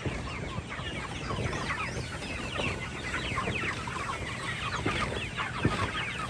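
A flock of chickens clucking and chirping without a break, many short calls overlapping.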